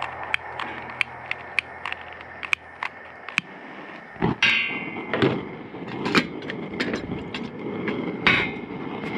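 A long-nose utility lighter is clicked over and over at a cast-iron propane burner, about two or three sharp clicks a second for the first three and a half seconds. A louder clatter follows about four seconds in, and near the end a metal clank as an enamel coffee percolator is set on the burner grate.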